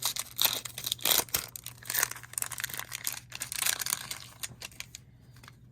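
Crinkling and tearing of a Panini Mosaic card pack's foil wrapper as it is torn open, a dense run of crackles that eases off near the end.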